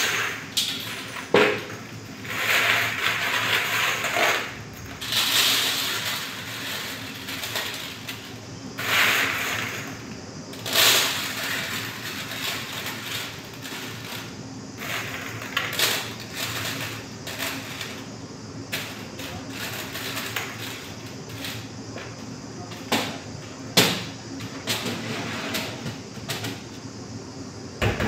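Hands handling a metal tray and loose thin strands: rustling and scraping swishes with occasional clinks and sharp knocks, the loudest knock near the end, over a steady low hum.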